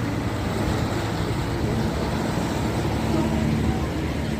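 Steady downtown street traffic noise: a constant low rumble of passing vehicles.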